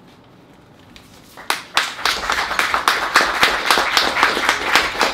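A small audience applauding with many hands clapping, starting about a second and a half in after a brief quiet, at the end of a poem.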